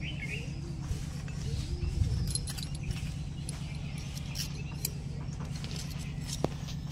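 Wrenches and steel bolts clinking and tapping together as they are handled, in scattered light clicks with one sharper knock near the end, over a steady low hum.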